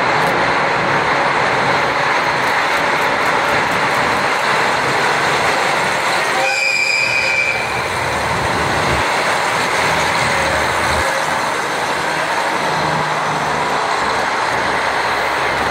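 Two-car JR Hokkaido KiHa 40 diesel railcar set passing close by, its engines running over the rumble of the wheels on the rails. A brief high squeal comes about six and a half seconds in.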